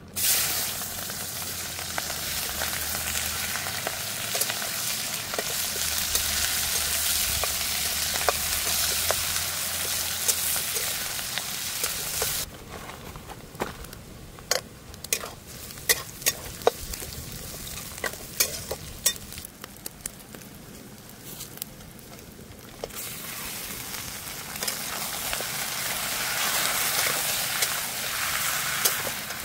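Sliced onions hitting hot oil in a steel kadai and sizzling hard from the first instant. About halfway the sizzle dies down and a metal spatula scrapes and clicks against the pan as onions and garlic are stirred. Near the end the frying builds again, with goat meat in the pan.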